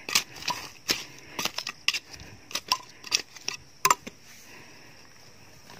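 Metal garden digging tool scraping and striking soil and stones in a string of short, sharp, irregular strokes, about nine of them in the first four seconds, then stopping.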